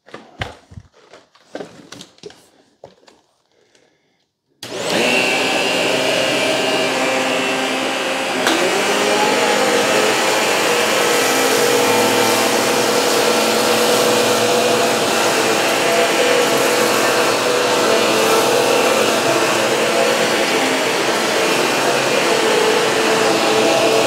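A few faint clicks, then upright vacuum cleaners (a Shark Navigator Lift-Away and a Bissell CleanView Swivel) switch on about four and a half seconds in and run loudly and steadily. A second motor pitch joins a few seconds later as both suck up coffee grounds, dog hair and cereal chunks from a tile floor.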